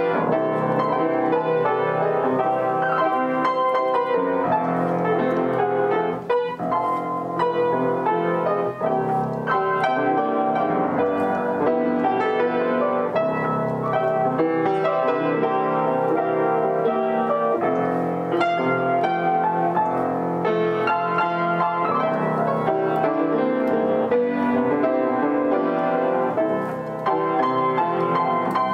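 Upright piano played by hand: a continuous song of chords under a melody, with no pause.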